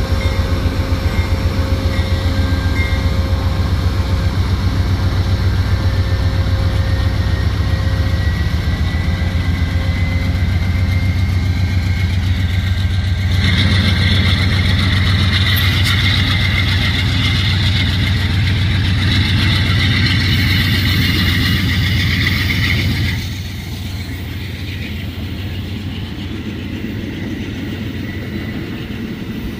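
Diesel freight locomotives passing with a deep, pulsing engine throb. About halfway through, a loud rushing, hissing noise joins for roughly ten seconds and then cuts off, leaving the quieter rumble of the rolling freight train.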